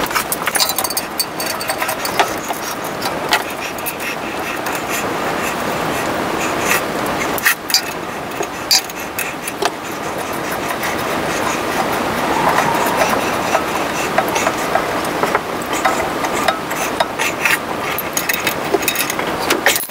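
A steady hissing rush with many scattered small clicks and clinks while a toilet's water supply line is connected by hand at the shut-off valve and tank.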